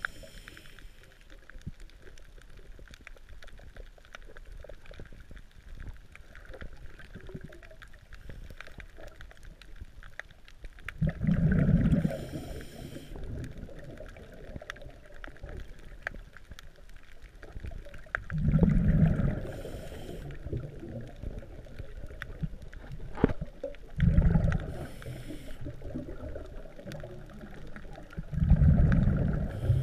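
Scuba diver's regulator breathing heard underwater through the camera housing: four rumbling bursts of exhaled bubbles, about six to seven seconds apart, each with a brief hiss. Faint crackling runs in between.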